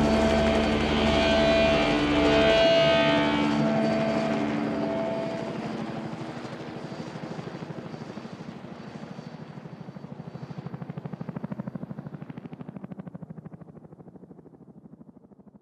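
The end of an instrumental rock piece: a held chord on electric guitar and bass rings for the first few seconds and dies away. It leaves a fast throbbing, fluttering sound that fades out gradually.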